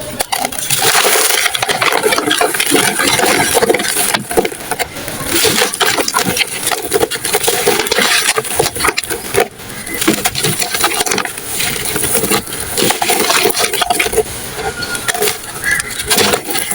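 Crumbly, powdery 'dusty' material being crushed and crumbled, a dense run of small crackles and crunches that keeps going with brief lulls.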